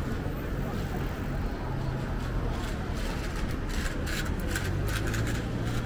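Busy city street ambience: a steady low traffic rumble, with a quick irregular run of sharp clicks or ticks from about two seconds in until shortly before the end.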